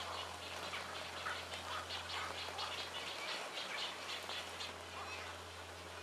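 Steady hiss of falling water, with a bird giving a quick run of short, duck-like calls, several a second, in the middle of the stretch. A low steady hum runs underneath.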